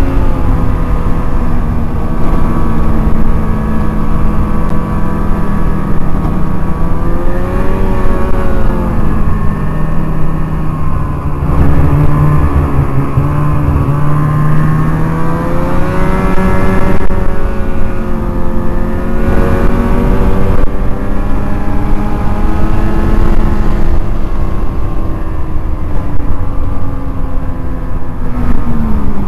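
Snowmobile engine running under way, heard from on board. Its pitch rises and falls again and again as the throttle is worked, over a constant low rumble.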